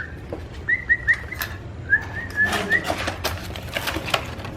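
Caged songbirds chirping: short, rising chirps in two quick runs of four or five notes, mixed with sharp clicks and light knocks of birds hopping about in wire cages.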